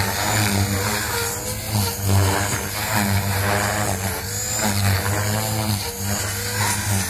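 Gaui X3 electric RC helicopter in flight: the rotor's low drone and the motor's whine swell and fade over and over, their pitch bending up and down as it manoeuvres.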